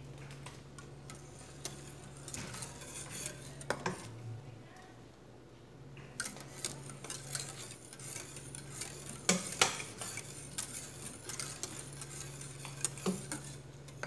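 Wire whisk stirring a milky gelatin mixture in a stainless steel saucepan as it nears the boil, its wires ticking and clinking against the pot, busier in the second half with one sharp clink about nine seconds in. A steady low hum runs underneath.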